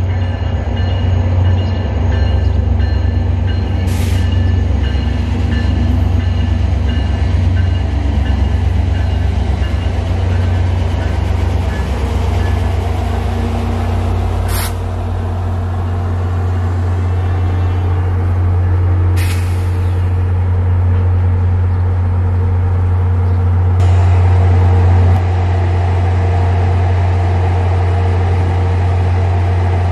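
VIA Rail passenger train with an EMD F40PH-2 diesel locomotive rolling slowly into the station and stopping. The locomotive's diesel engine gives a steady deep rumble, with a few short air hisses from the brakes about 4, 15 and 19 seconds in.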